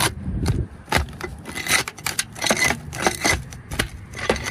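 Irregular metal scraping, rubbing and knocks as an old roof turbine vent is worked loose by hand.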